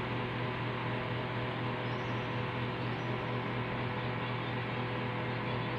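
Steady room background: a constant low hum with an even hiss over it, unchanging throughout.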